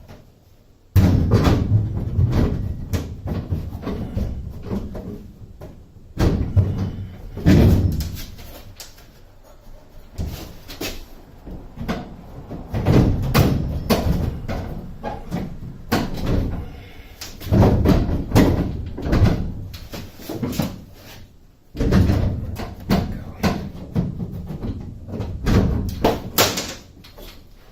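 Irregular metal bangs, knocks and scraping from a school bus's rear air conditioner unit being worked loose and pried free, with sudden stops and restarts.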